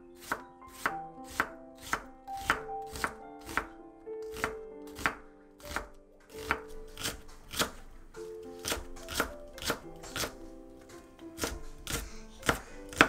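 Kitchen knife slicing an onion into strips and then green onion on a wooden cutting board: a steady run of crisp knife strokes against the board, about two a second.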